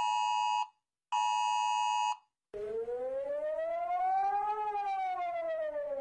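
A phone's emergency alert tone, a steady high beep that stops, then sounds again for about a second. After a short gap an electronic siren wails, rising slowly in pitch and falling again once.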